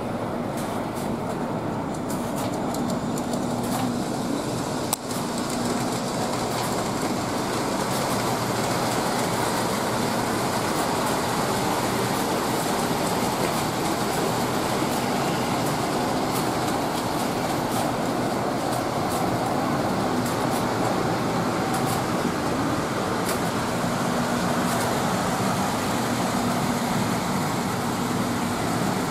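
O gauge three-rail toy trains running on a layout: a steady rumble of small electric motors and wheels on track, with scattered light clicks.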